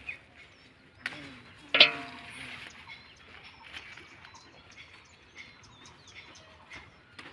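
Small birds chirping over a rustle of leaves and vines being pushed through. A little under two seconds in comes one brief, loud pitched call from an unseen source.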